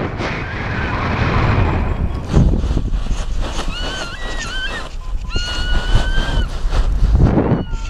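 Wind rushing over the microphone in flight, with high thin whistling calls: a wavering pair about four seconds in, one longer held call at about five and a half seconds, and another starting near the end.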